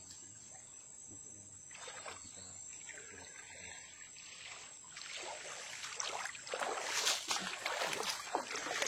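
Irregular splashing and sloshing of water, getting louder and busier about halfway through.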